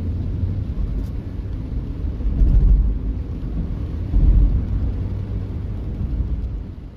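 Low rumble of a vehicle moving along the toll road, with two louder swells about two and a half and four seconds in.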